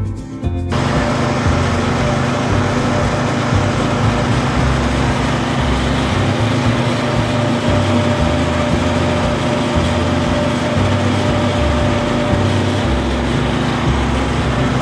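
A lawn tractor's engine running steadily under way as it is driven along, after music that cuts off under a second in.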